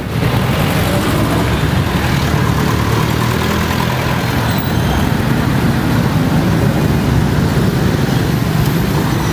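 Busy road traffic: jeepneys, box trucks and motorcycles driving past close by, a steady, dense noise of engines and tyres with no single event standing out.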